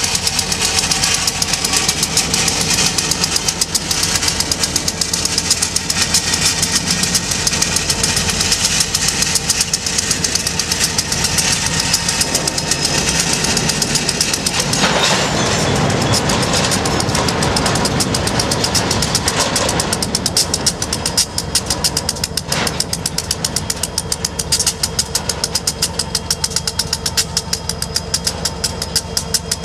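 Two EMD SD70M diesel-electric locomotives, 16-cylinder two-stroke engines, run close by as a freight train creeps slowly and comes to a stop. About halfway through a louder rushing rumble from the train lasts several seconds, and a single sharp clank follows a little later.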